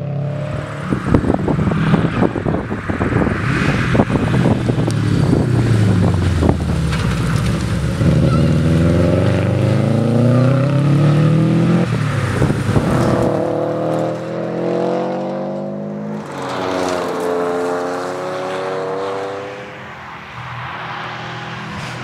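Subaru Liberty RS Turbo's turbocharged flat-four engine accelerating hard through the gears on several passes, its pitch climbing repeatedly and dropping back at each gear change. Sharp crackling clicks are heard over the first several seconds.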